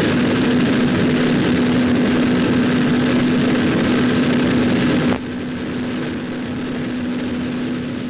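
Machinery running with a steady, loud drone and a constant low hum. It drops suddenly to a quieter level about five seconds in.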